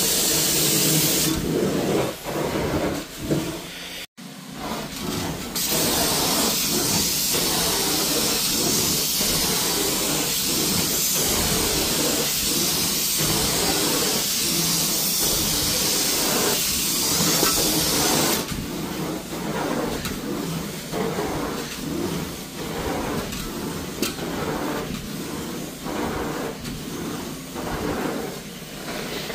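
Hot water carpet extraction wand hissing and slurping as it is drawn across wet carpet, sucking up water and solution. A sharp high hiss dominates for much of the time and drops away about two-thirds of the way through, leaving a lower, uneven suction noise that pulses with the strokes. The sound cuts out for an instant about four seconds in.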